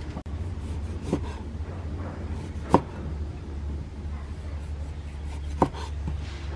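A knife cutting limes on a wooden chopping board: a few sharp, separate knocks as the blade goes through and strikes the board, the loudest near the middle, over a low steady hum.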